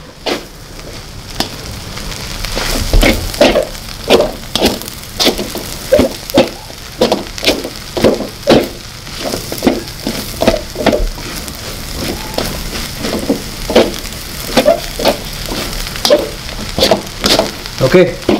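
Metal spatula repeatedly scraping and clinking against a wok while stir-frying fried rice, with a steady sizzle underneath. The clinks are sharp and ringing and come irregularly, about once or twice a second.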